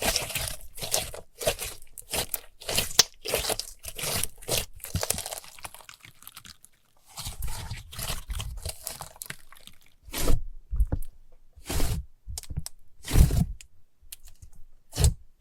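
Slime being squeezed and pressed by hand, giving a quick, irregular run of small pops and crackles. After a short lull in the middle come a few separate, louder presses, each with a dull low thud.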